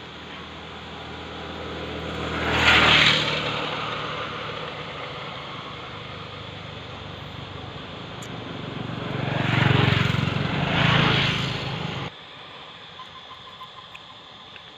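Motor vehicles passing close by, each swelling up and fading away: one about three seconds in, then two more in quick succession around ten seconds in. The sound cuts off abruptly about twelve seconds in.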